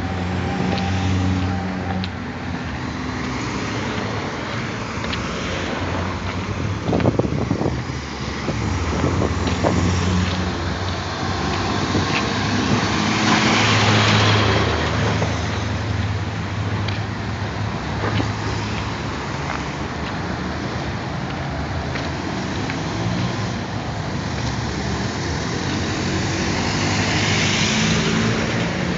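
Busy road traffic heard from a moving vehicle: a steady engine hum and tyre noise, swelling as vehicles pass close about halfway through and again near the end, when a bus goes by alongside.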